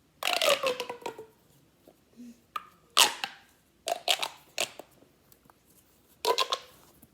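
Pop tube fidget toy, broken into pieces, being stretched and squashed: a series of short ribbed-plastic pops and whirs, the first longer with a falling pitch.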